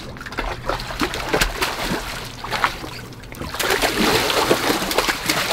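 A hooked bowfin thrashing and splashing at the surface beside a dock as it is fought and netted. There are irregular spatters and slaps of water, growing heavier and more continuous a little past halfway.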